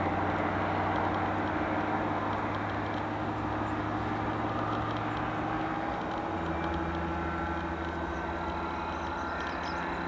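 Challenger ultralight's engine droning steadily in flight, its note shifting abruptly about six seconds in.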